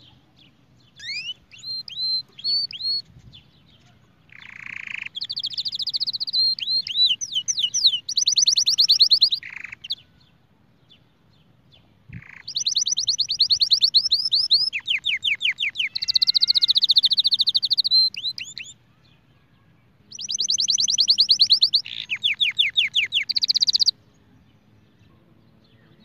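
White domestic canary singing: a few short notes, then three long bouts of fast rolling trills with pauses of a second or two between them.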